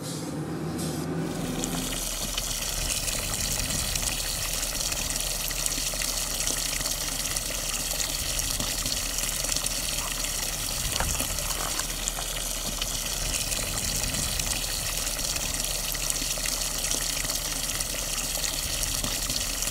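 Water pouring steadily from a spout into a wooden log trough, a continuous even rush that sets in about a second and a half in.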